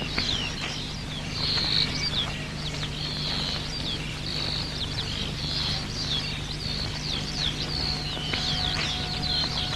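Small birds chirping and twittering without a break, in many short, high, quickly falling notes, over a steady low hum.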